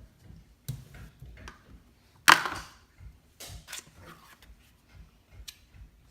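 Scattered knocks and clicks of kitchen utensils against a pan while butter is put in to melt, with one louder clatter a little over two seconds in.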